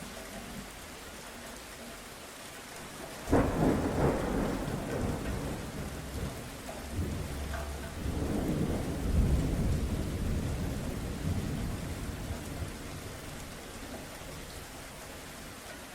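Thunderclap breaking suddenly over steady rain about three seconds in, then rolling rumble that swells again midway and fades away, with the rain hiss continuing.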